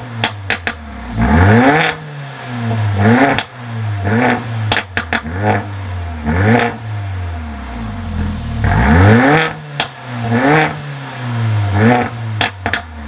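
Mercedes-AMG A45 4Matic's turbocharged 2.0-litre four-cylinder revved in repeated short throttle blips at standstill, with its sports exhaust flaps open in Race mode. Each rev rises and falls back, and several end in sharp pops and crackles on the overrun: the deliberate backfires of the flap exhaust.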